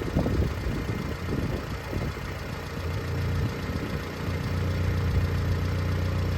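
A 1998 Subaru Sambar's small EN07 four-cylinder engine, just started after an oil change. It runs unevenly for the first few seconds, then settles into a steady idle about three seconds in.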